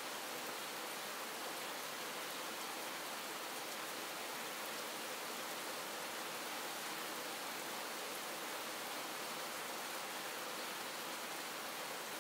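Steady rain falling: an even hiss with faint, scattered ticks of individual drops.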